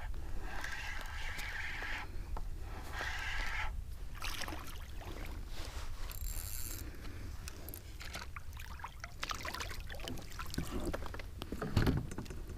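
Handling noise on a fishing kayak: scrapes, clicks and knocks against the hull, with a louder knock near the end, over water sloshing and wind on the microphone.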